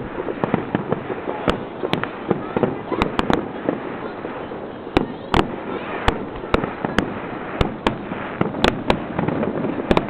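Aerial fireworks bursting in an irregular string of sharp bangs, about one to two a second, with the loudest reports near the middle and about two-thirds of the way in, over a continuous dense crackle and rumble.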